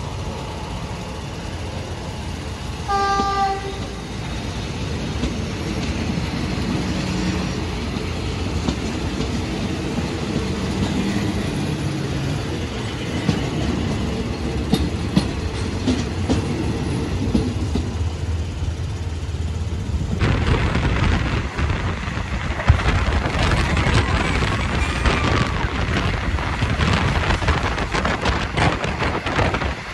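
Passenger train hauled by a diesel-electric locomotive: a short horn blast about three seconds in, then the steady rumble of the train, which turns into louder rushing and rattling about two-thirds of the way through.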